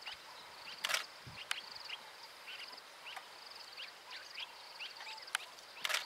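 Bush ambience: a steady, pulsing high-pitched insect trill with scattered short bird chirps, and a few sharp clicks, the strongest about a second in.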